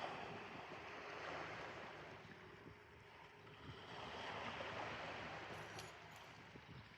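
Seashore ambience: a soft rushing of waves and wind that swells and eases twice.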